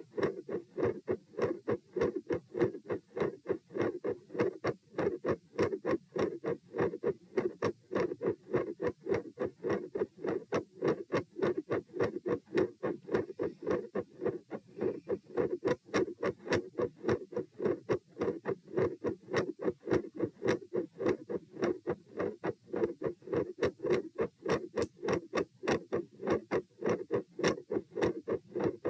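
Heartbeat heard through a stethoscope: a steady, regular rhythm of short heart sounds, with a mid-systolic click between the first and second sounds and a split second heart sound. The mid-systolic click is typical of mitral valve prolapse.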